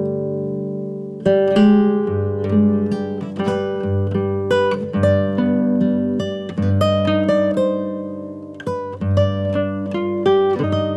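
Instrumental background music of plucked, guitar-like notes, with a short lull about a second in before the playing picks up again.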